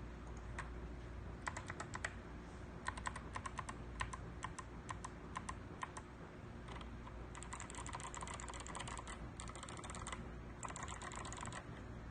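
Typing on a Ganss GS87 mechanical keyboard with clicky Kailh Box White switches and SA-profile keycaps. Scattered single keystrokes for the first several seconds, then quick runs of fast typing from about seven seconds in.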